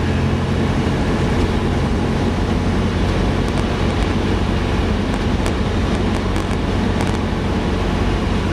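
Cessna 172's piston engine and propeller droning steadily in cruise, heard from inside the cabin together with the rush of airflow.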